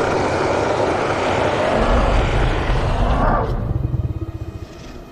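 A Tyrannosaurus rex's sound-designed call: a loud, rumbling growl with a fast low throb. Its upper part breaks off about three and a half seconds in, and the low rumble fades out about a second later.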